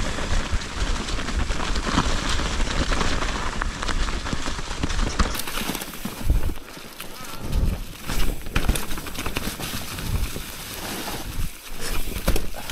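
Mountain bike rolling fast down a dirt trail covered in dry leaves: steady tyre noise over leaves and dirt, with the bike rattling over small bumps and several heavier thumps in the second half.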